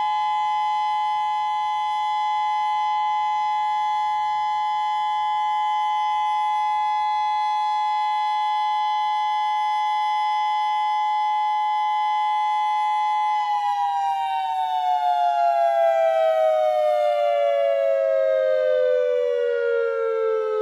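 Federal Signal Modulator II 6024B electronic warning siren sounding a steady, loud two-note tone. About two-thirds of the way in it begins winding down, its pitch gliding steadily lower.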